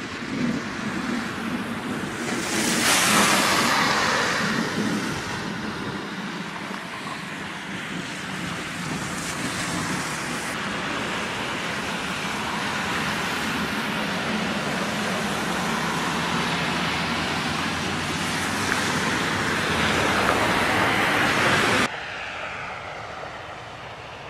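Strong gusty wind buffeting the microphone, swelling loudest about three seconds in and again near the end, then cutting off abruptly to a softer rush.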